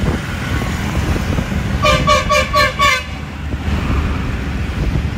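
A vehicle horn beeping about five times in quick succession, about two seconds in, over a steady low rumble of riding along a road with traffic.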